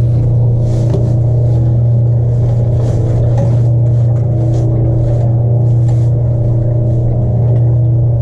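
Boat motor running steadily at idle: a constant low hum, with a few faint knocks from handling on the deck.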